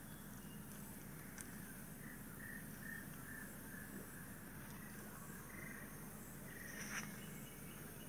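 Faint outdoor ambience with a run of short high animal calls, two or three a second, over a steady low hum. A single sharp click comes about seven seconds in.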